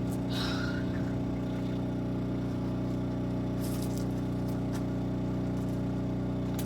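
A small engine running steadily at an even speed, with a few light clicks over it.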